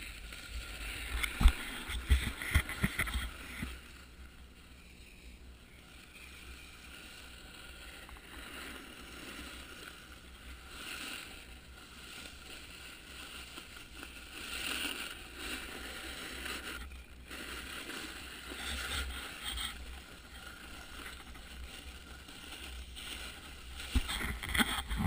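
Snowboard sliding and scraping over packed piste snow, a steady hiss over a low rumble. A few sharp knocks come in the first three seconds, and it grows louder near the end.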